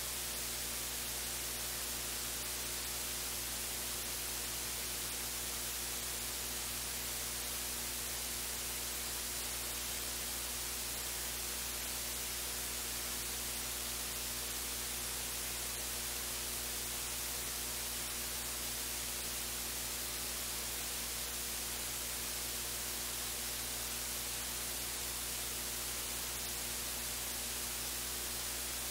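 Steady electronic hiss with a faint mains hum from the recording's audio line. No room sound or voices get through: the sound feed's own noise floor.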